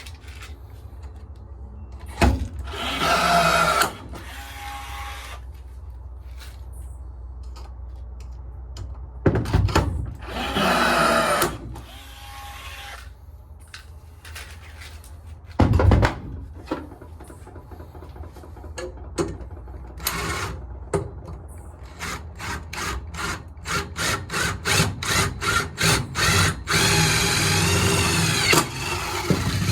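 A handheld power tool running in short bursts of a couple of seconds each, with a sharp knock between them. Near the end comes a run of quick, evenly repeated strokes and then a longer run whose pitch rises and falls.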